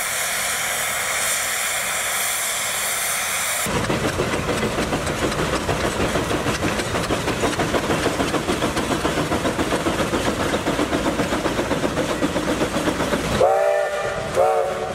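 J. I. Case 110 hp steam traction engine under load: a long, high-pitched steam whistle blast for the first few seconds, which cuts off sharply, then the engine's exhaust chuffing in a steady rhythm as it pulls the gang plow. Near the end, two short, lower steam whistle toots.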